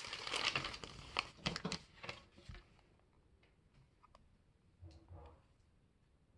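Sheet of paper rustling and crinkling as it is laid over a pegboard of fuse beads, with many small sharp clicks. It dies down after about two and a half seconds, and there is a short soft rustle and bump just before five seconds in.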